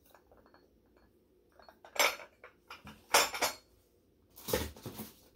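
Ceramic teapot, teacup and saucer clinking and knocking against each other as the stacked tea set is handled and set down, in a few short clatters spread over the last three seconds or so.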